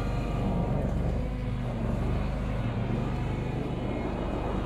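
Engine of a homemade wheel loader running steadily as the machine drives with a full bucket of snow. The engine note eases off a little about a second in and picks up again near the end.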